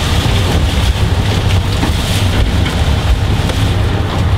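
Boat's engine running steadily under way, a constant low drone, with wind buffeting the microphone over the sea.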